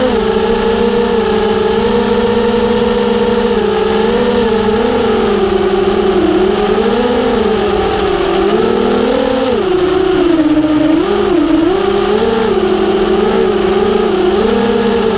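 FPV racing quadcopter's 2500 kV brushless motors spinning DAL V2 props on a 3S battery, a continuous whine whose pitch rises and dips with the throttle, over a steady rushing noise.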